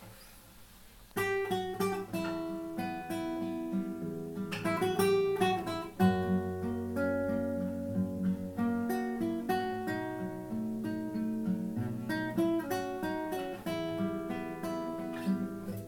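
Acoustic guitar playing a song's introduction, starting about a second in: picked notes and strummed chords.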